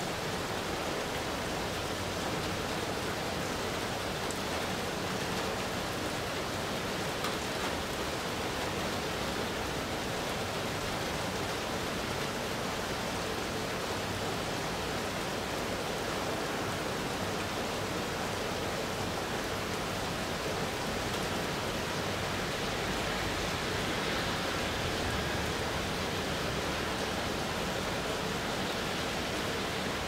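Steady rain falling during a thunderstorm, heard as a continuous, even hiss.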